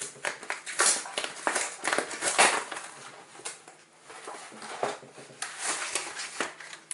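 A trading-card starter pack's packaging being opened and handled: irregular crinkling, rustling and light knocks, with no steady rhythm.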